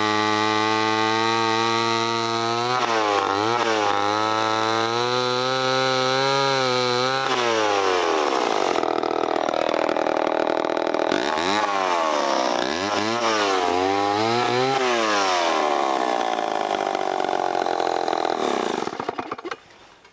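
Homelite C-7 chainsaw's 80.5 cc two-stroke engine running at full throttle while cutting through a log. Its pitch sags and recovers again and again as the chain loads up in the wood. The sound cuts off abruptly near the end.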